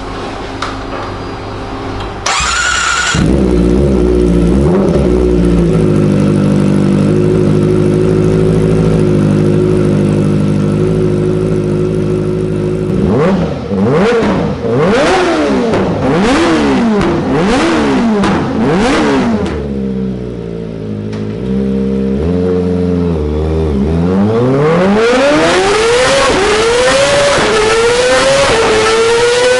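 Kawasaki Ninja ZX-25R's 250 cc inline-four engine running on a chassis dyno. About two seconds in it jumps louder and holds steady revs for about ten seconds. It is then revved rapidly up and down, drops back, and near the end climbs in a run of rising sweeps, each broken by a short dip as it pulls up through the gears.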